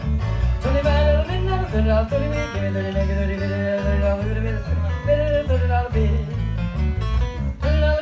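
A band playing a country-style song: acoustic guitar over an evenly pulsing bass, with a melody line on top.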